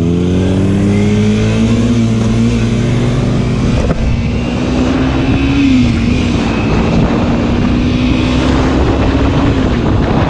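Kawasaki Ninja 300's parallel-twin engine pulling up through the revs, then holding a steady cruise with brief dips in pitch about halfway and near the end. A rush of wind noise builds under it from a few seconds in.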